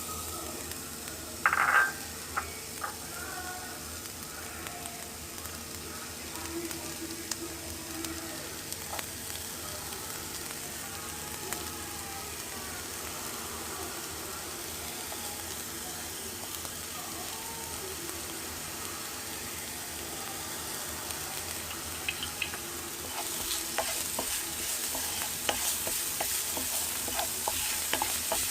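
Food sizzling in a frying pan, with a sharp knock about two seconds in. About 23 seconds in the sizzle gets louder, and rapid clicks and scrapes of a utensil stirring come in.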